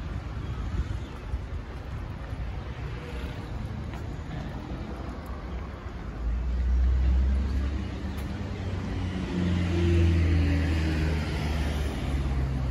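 Street traffic. From about six seconds in, a motor vehicle's engine runs close by with a low hum that swells twice.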